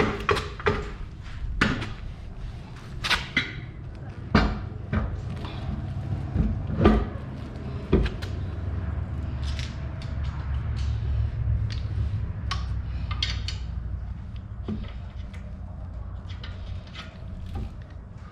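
Irregular knocks and clicks of parts being handled and fitted into a car door during a door-speaker install, over a steady low hum.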